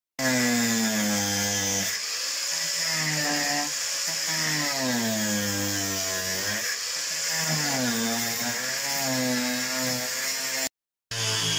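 Handheld electric power tool cutting into a van's rubberised floor coating, its motor whine sliding down in pitch as it bites and back up as it eases off, again and again. The sound drops out briefly right at the start and again about a second before the end.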